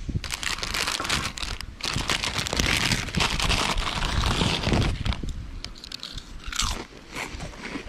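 Crinkling of a SunChips chip bag as a hand digs into it, loud and continuous for the first five seconds or so, then a few shorter rustles.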